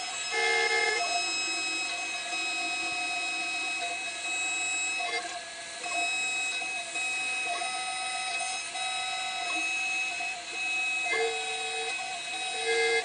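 CNC 6040 router running a job: a steady machine whine made of several tones that shift in pitch every few seconds as the stepper-driven axes change speed and direction.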